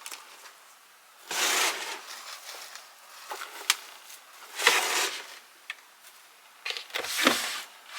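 Short rubbing or rustling noises, three of them a few seconds apart, with a few sharp clicks in between, as of household objects being handled.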